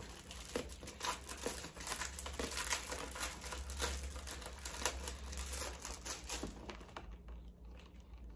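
Clear plastic wrapping crinkling and crackling as hands pull it off a pack of sticky notes. The crinkling is dense and irregular, then thins to a few faint crackles about a second before the end.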